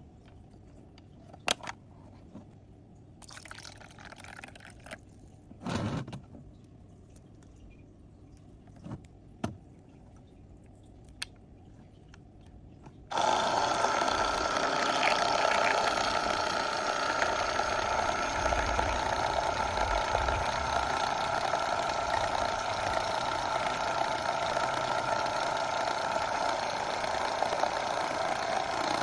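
A few light clicks and knocks from a small plastic appliance being handled. About halfway through, the pink toy washing machine's small motor switches on and runs steadily to the end.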